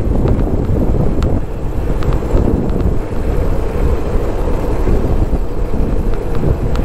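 Wind rushing over the microphone of a moving motorcycle, a dense low rumble with road and engine noise underneath, and a few small clicks or rattles.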